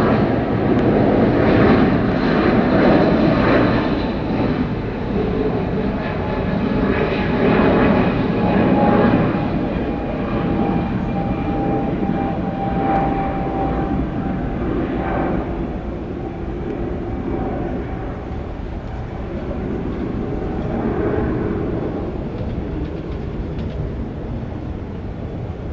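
Jet airliner engines running at an airport, with a rumble and a steady whine, loudest for the first ten seconds or so and then slowly fading.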